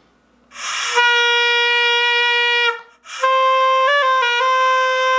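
Taepyeongso, the Korean double-reed shawm, blown in two long held notes, each starting with a breathy rush of air: the first lasts about two seconds, the second begins about three seconds in and briefly steps up in pitch and back. A clean, full tone from the reed held firmly against the lips, with no air leaking.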